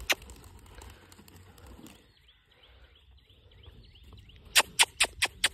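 A sharp click just after the start, then a quick run of about five sharp clicks near the end. Faint small-bird chirps sound in between.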